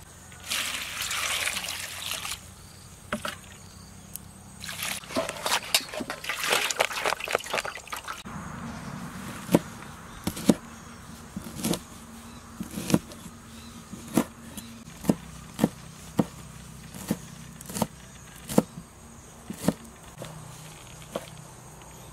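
A cleaver chopping red chilies on a wooden chopping board: sharp knocks at about one a second through the second half. Before that come a few seconds of hissy rustling and small clattering handling noise.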